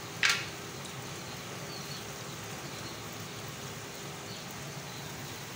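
Steady sizzling hiss of food frying in oil on a gas stove, with one brief sharp rustle about a quarter second in.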